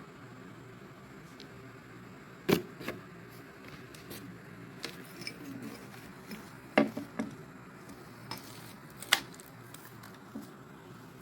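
Scattered sharp knocks and light clicks of a boxed meat grinder and its packaging being handled, with three louder knocks about two and a half, seven and nine seconds in.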